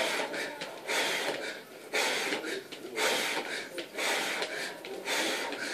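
A man breathing hard during Bulgarian bag spins, a forceful hissing breath about once a second in time with the swings.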